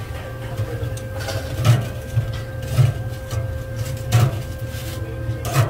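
Metal tongs clinking against a stainless-steel wire fryer basket as fried cheese sticks are lifted out: a few sharp knocks about a second apart over a steady low hum of kitchen equipment.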